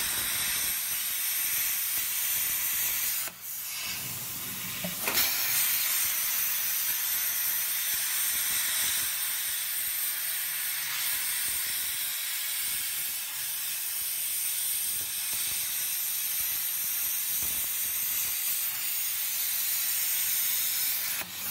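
CNC plasma cutter torch cutting thin sheet metal, a steady hiss of the plasma arc and its air jet. The hiss drops away briefly about three seconds in and comes back about five seconds in.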